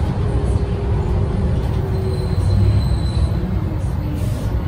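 Interior of a Renault PR100.3 bus under way: its 9.8-litre six-cylinder turbocharged diesel and ZF automatic gearbox give a steady low rumble, mixed with road noise through the cabin. A faint high whine joins in about two seconds in and fades out about a second later.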